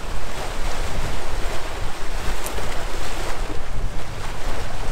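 Strong gusty wind buffeting the microphone with a deep rumble, over wind-driven lake waves splashing against shoreline boulders.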